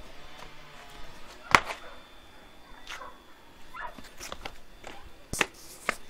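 A dog making a few faint, short whining vocalizations, with several sharp clicks, the loudest about one and a half seconds in.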